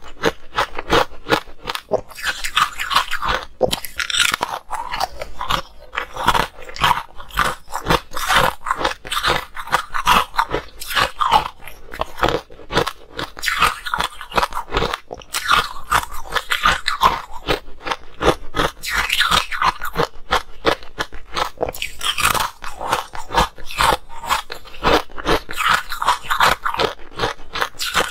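Close-miked biting and chewing of coloured ice sticks: a dense, continuous run of sharp crunches and cracks as the ice breaks between the teeth.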